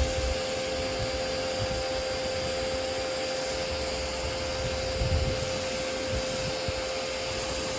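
Pressure washer running steadily: a constant motor-and-pump whine under the hiss of water spraying from a rotating turbo nozzle onto a truck's body.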